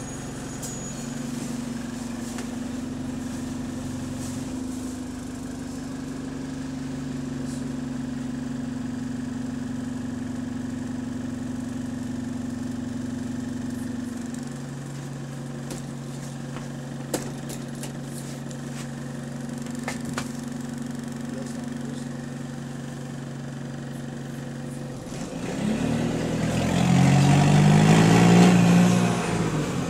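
Engine of a bus with a burst exhaust, heard on board, running steadily, its tone dropping in steps about four and about fourteen seconds in. About 25 seconds in it gets much louder, the pitch rising and falling, loudest just before the end.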